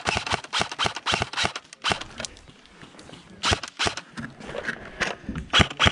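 Airsoft gunfire: quick strings of sharp clicks and cracks, with a short lull a little past the middle before the clicks start again.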